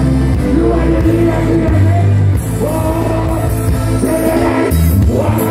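Live reggae band playing loud through a concert PA, with a male singer's voice over a steady bass line, recorded from within the crowd. A hiss from the stage's CO2 smoke jets comes in partway through.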